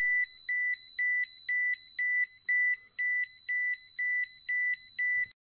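TERRA-P radiation dosimeter's alarm beeping: a steady high beep repeated about twice a second, around a dozen times, cutting off abruptly near the end. The alarm signals a dose rate above its set threshold.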